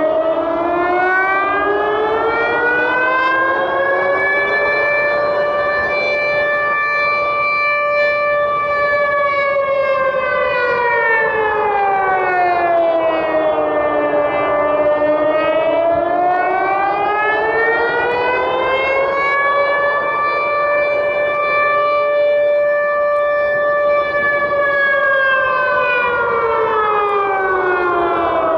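Civil-defence alarm siren wailing, its pitch rising and falling slowly in about two full cycles of roughly fifteen seconds each.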